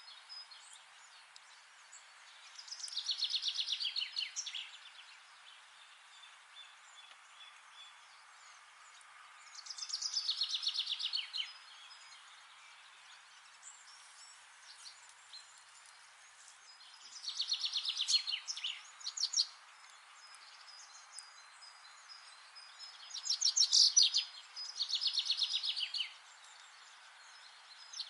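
A songbird singing short, rapid high trills, each phrase lasting about a second and repeated every six or seven seconds, twice in quick succession near the end, over a steady soft background hiss.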